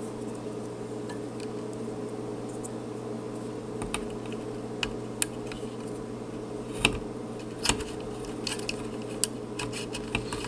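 Small irregular clicks and taps as electrolytic capacitor leads are handled and pushed into the holes of a TV power-supply circuit board, over a steady low electrical hum. Most of the clicks fall in the second half.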